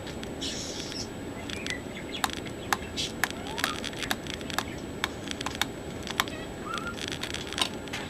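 Small Phillips screwdriver working the screw on a netbook's plastic memory compartment cover: a string of sharp, irregular clicks as the screw is turned loose.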